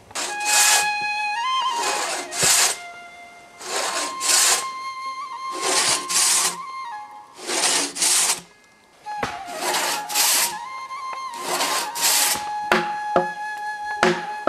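Flute music over the rhythmic rasping of a long two-man pit saw ripping a log lengthwise, its strokes coming in pairs about every two seconds. A few sharp knocks near the end.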